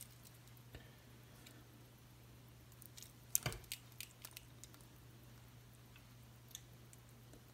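Faint handling clicks and taps as two steel wristwatches are moved about in the hands, bunched about three to four and a half seconds in, over a steady low hum.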